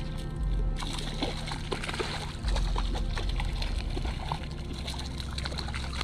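A hooked fish thrashing at the water surface on the line, splashing and sloshing water in a string of quick splashes.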